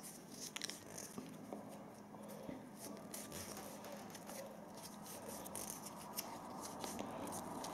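PTFE thread-seal tape being pulled off its roll and wound around the threads of a radiator valve tail: faint rustling with many small irregular crackles and clicks.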